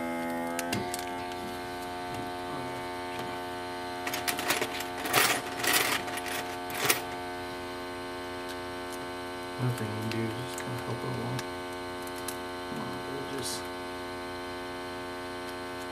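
Steady electrical hum with many overtones from the running LCD separator bench equipment; its tone shifts slightly about a second in. Small clicks and rattles of phone parts being handled come between about four and seven seconds in.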